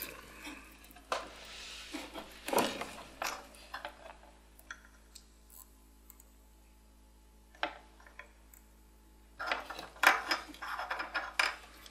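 Small clicks, taps and clinks of a soldering iron, solder wire and a small circuit board being handled while an IC chip is soldered in. They come in short bunches near the start and again near the end, with a near-silent stretch between.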